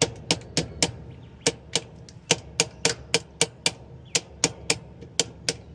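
Light hammer taps on the washer's motor coupler as it is tapped level on the shaft, about four taps a second with a short pause about a second in, each tap with a faint ring.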